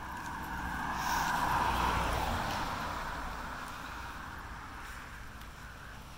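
A car driving past on a road, its tyre and engine noise swelling to a peak about two seconds in and then fading away.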